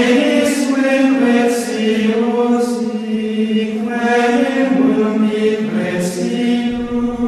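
Choral chant as background music: voices singing slow, sustained notes that change pitch every second or so, with the hiss of sung consonants between them.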